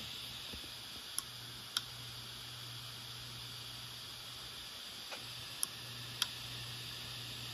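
Samsung SpinPoint P80SD HD080HJ/P 7200 rpm hard drive running open with its cover off: a steady hum and hiss from the spinning platter, broken by sharp clicks of the head actuator, two quick clicks about half a second apart, then two more about four seconds later. This is the drive's click of death.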